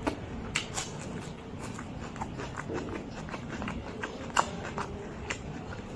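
Close-miked eating sounds: a person chewing a mouthful of rice and curry, with many short wet mouth clicks and smacks. One sharper click about four and a half seconds in.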